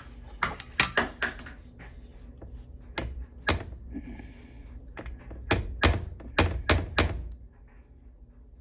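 Hammer tapping on a microwave's sheet-metal case to knock out a small dent. There are a few light taps, then after a pause a run of sharper taps, each leaving a short high metallic ring.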